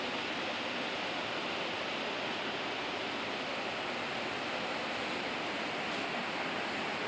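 Steady rush of fast-flowing water, an even roar with no breaks.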